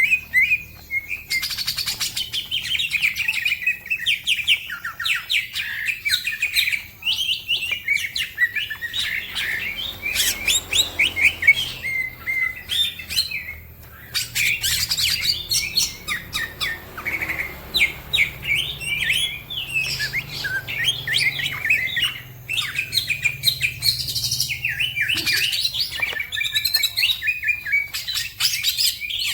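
Green leafbird (cucak ijo) singing a fast, continuous song of rapid chirps and sweeping whistled notes, with a brief pause about 14 seconds in.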